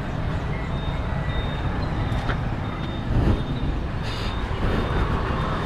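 Road traffic: a steady low engine rumble from motor vehicles.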